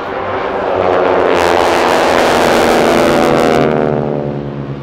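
A formation of aerobatic planes with Pratt & Whitney R-1340 Wasp radial engines (about 600 horsepower each) flies past at full power. The engine noise swells to a loud peak with the pitch dropping as they pass, then fades near the end.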